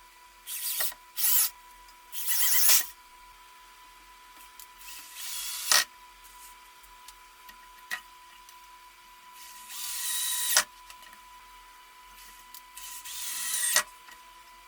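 Electric drill running in several short bursts, drilling into wood. The longer runs grow louder as they go and then stop sharply.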